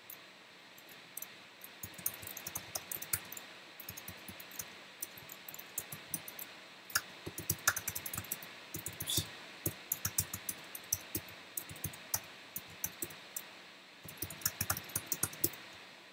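Typing on a computer keyboard: runs of uneven keystroke clicks with short pauses between them, starting about two seconds in.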